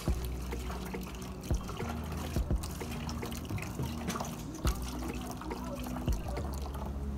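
Liquid trickling and pouring as the liquid is strained off soaked corn and millet mash for liha. A few sharp knocks come through, over background music.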